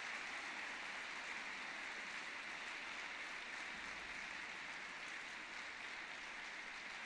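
Audience applauding steadily in an ice rink arena, a dense patter that eases off slightly over the seconds.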